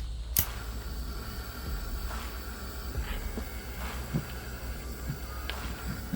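Scattered light clicks and knocks, like small parts and tools being handled during wiring work, over a steady low hum.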